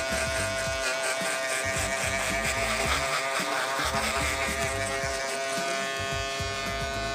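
Wahl electric hair clipper running with a steady hum as it cuts close to the skin for a below-zero fade. Background music plays underneath.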